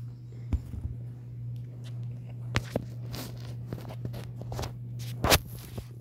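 Scattered sharp clicks and taps at irregular intervals, the loudest about five seconds in, over a steady low hum.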